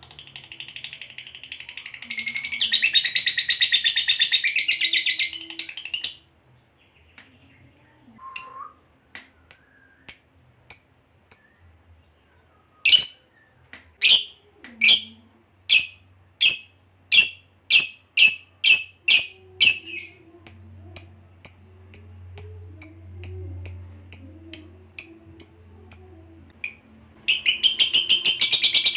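Fischer's lovebird calling: a long, rapid, dense chattering trill, the 'ngekek panjang' prized by lovebird keepers, for the first few seconds. Then it gives single sharp chirps roughly twice a second, and near the end it breaks into the long chattering trill again.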